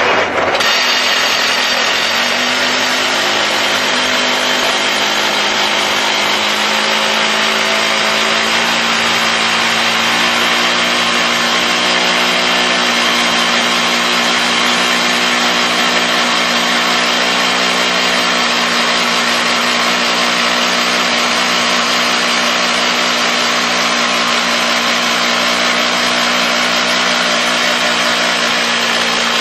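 DT1-14 rock drilling rig drilling into a rock face, its drill running loud and steady without a break. Its pitch rises slightly over the first few seconds, then holds.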